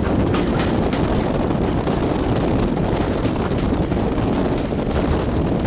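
Wind buffeting the microphone held at the window of a moving passenger train carriage, over the steady rumble of the train running along the track.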